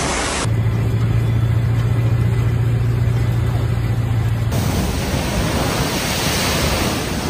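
Steady rushing of floodwater and storm surf. From about half a second in until about four and a half seconds, the rush turns duller under a steady low hum.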